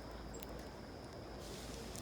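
Faint outdoor backyard ambience: a low rumble and a steady thin high-pitched hum, with one short high chip and a click about half a second in.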